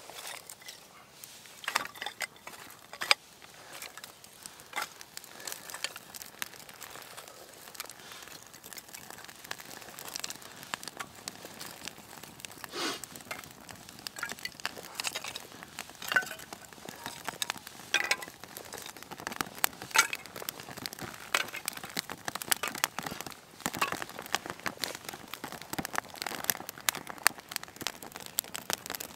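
Dry split kindling catching fire in an open fire lay, crackling with sharp irregular snaps and pops. The snaps come more often as the flames build.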